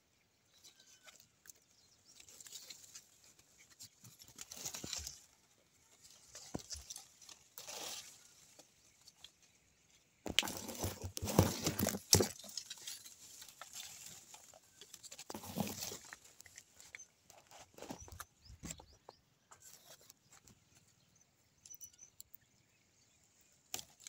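Cashew tree leaves and twigs rustling and crackling as a hand pushes through the branches and handles a ripe cashew apple, in uneven bursts that are loudest and densest from about ten to twelve seconds in.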